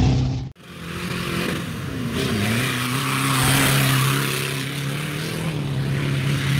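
Off-road competition vehicles' engines running under load in the mud: a steady engine note with a few brief dips and rises in pitch, over a broad hiss. The sound breaks off sharply about half a second in and comes back.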